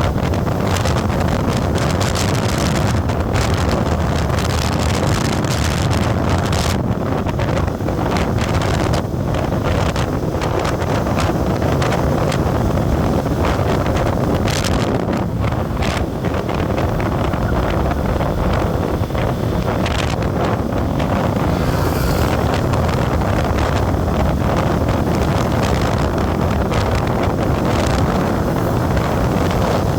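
Wind buffeting the microphone over the steady rumble of a vehicle travelling on the road.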